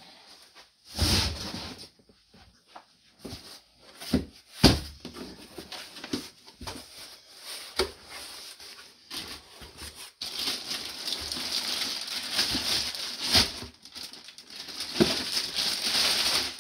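Packing paper and cardboard boxes being handled, rustling and crinkling, with scattered knocks and a sharp loud knock about four and a half seconds in, then several seconds of continuous rustling near the end.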